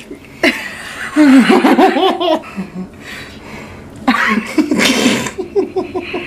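People laughing: a wavering, pitched laugh about a second in, then a longer breathy burst of laughter past the middle.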